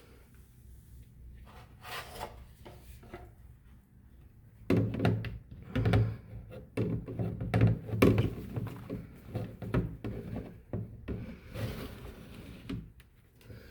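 A run of irregular knocks and thumps, several a second, some heavy and thuddy, preceded by fainter scraping or rubbing.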